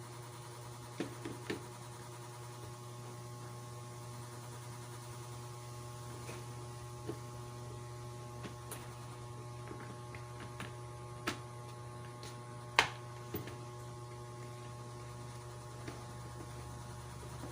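Steady low electric hum with several fainter steady tones above it, and a few short faint clicks and taps, the loudest about 13 seconds in.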